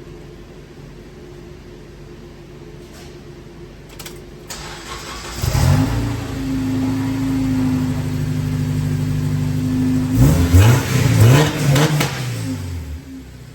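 A Honda Accord Euro's 2.4-litre K24 four-cylinder starts on its factory ECU. After a couple of clicks it cranks, catches about five seconds in and settles into a steady fast idle. A few quick throttle blips follow about ten seconds in, then it drops back to a lower idle near the end.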